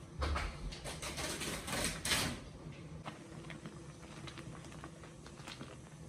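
Kitchen clatter: a run of sharp knocks and clicks in the first two seconds or so, then fainter scattered ticks over a low steady hum.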